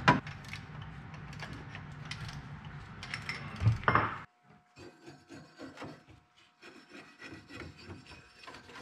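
Workshop handling and hand-tool noises on metal engine parts. A few sharp knocks sit over a steady low hum in the first four seconds. After a cut come many quieter light clicks and scrapes of a tool working on the engine mounting plate.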